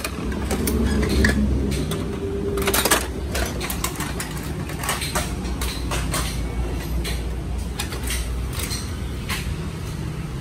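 Low steady rumble of passing road traffic, heavier in the first two seconds, with many scattered sharp clicks and knocks and a loud cluster of them about three seconds in.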